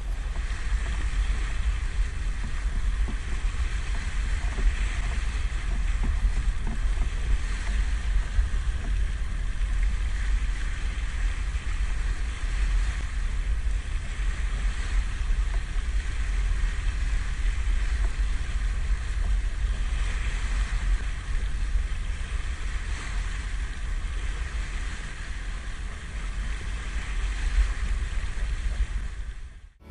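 Steady rush of a boat under way over open water, with wind buffeting the microphone and a heavy low rumble.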